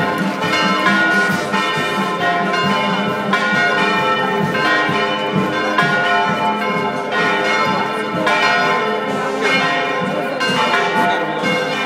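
Church bells ringing a continuous festive peal, many strikes overlapping so their tones ring into one another.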